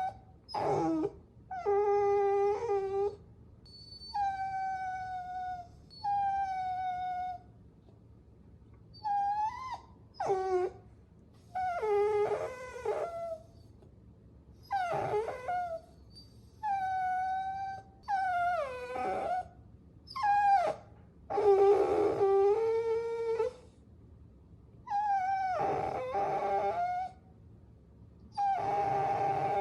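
Puppies whining: a string of high-pitched whines, each about a second long with short gaps between, some sliding down in pitch and a few overlapping as more than one pup cries at once.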